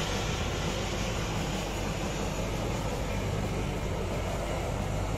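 Steady engine rumble, unbroken and even in level.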